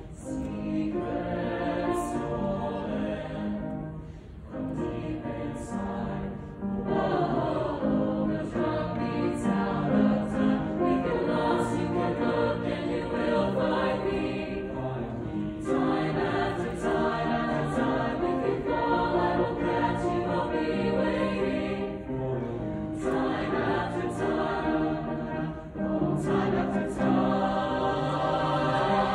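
Small mixed-voice jazz choir singing together in harmony, holding chords, with brief breaks between phrases.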